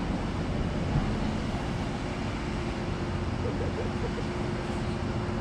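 Steady drone of heavy equipment engines running at a constant pitch and level, with no revving or cutting.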